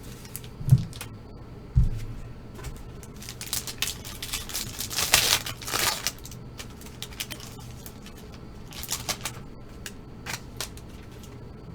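Trading cards and packs being handled on a table: two dull thumps, then a crinkling rustle and sharp clicks as a foil card pack is torn open and the cards are pulled out, strongest about four to six seconds in, with a few more clicks later.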